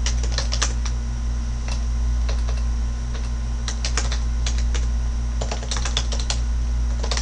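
Computer keyboard being typed on in short runs of keystrokes with brief pauses between, over a steady low hum.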